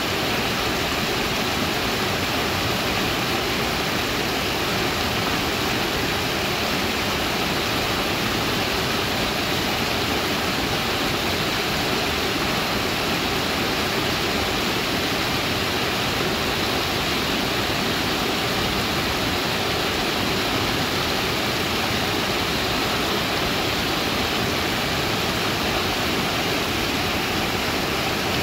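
Small waterfall pouring over a rock ledge into a creek pool: a steady, unbroken rush of water.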